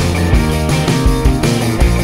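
Background rock-style music with a steady drum beat.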